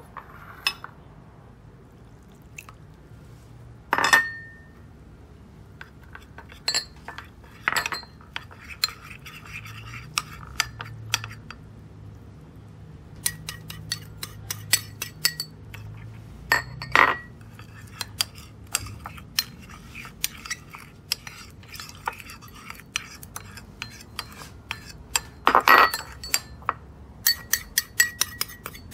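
A metal spoon clinking and scraping against porcelain bowls while stirring a thin cornstarch slurry. Scattered single clinks, a few louder ones ringing briefly, give way to runs of quick rapid clinks from stirring.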